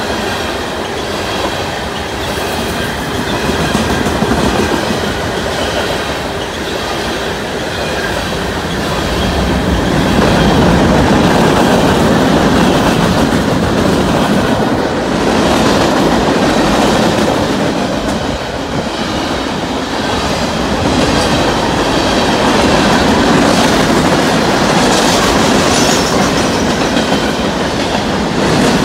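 Freight cars of a long train rolling past at speed, their steel wheels clacking rhythmically over rail joints with a steady rumble that grows louder about a third of the way in.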